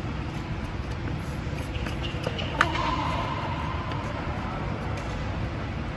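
Tennis ball struck by a racket with one sharp pop about two and a half seconds in, followed by a steady squeal about a second and a half long, with a few fainter ball hits. Underneath runs the steady low rumble of the air-supported dome's blowers.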